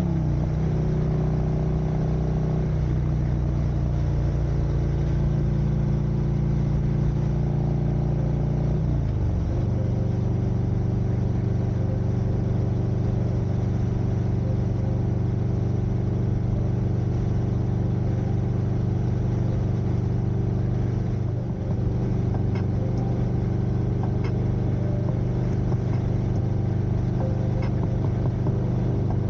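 Harley-Davidson Street Glide Special's Milwaukee-Eight V-twin engine and exhaust at highway cruising speed, about 75 to 80 mph, a steady drone mixed with wind noise. The engine note falls right at the start and dips briefly about nine seconds in and again a little past twenty seconds.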